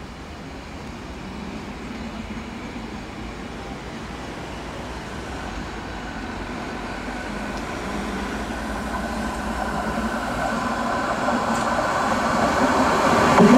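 Tram approaching on its rails, its running noise growing steadily louder, with a hum building over the last several seconds.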